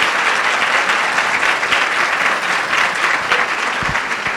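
Large audience clapping steadily, beginning to thin out near the end.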